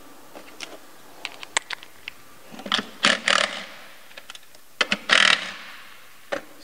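Hand work on an engine's intake plenum: scattered clicks and taps of tools and plastic parts, with two short, louder rasping scrapes about three and five seconds in.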